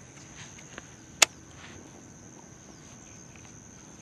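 Crickets chirring, a steady high-pitched buzz over a quiet outdoor hiss, with one sharp click about a second in and a couple of fainter clicks before it.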